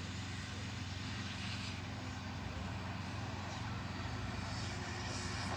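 An engine running steadily, a low even drone with no change in pitch.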